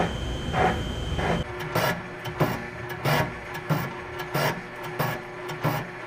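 Fly cutter on a slowly turning boring bar face-milling the repaired section of a Minneapolis-Moline tractor rear case: a rhythmic metal scrape each time the bit sweeps through its cut, about one and a half strokes a second. A low drive hum sits under the first second and a half.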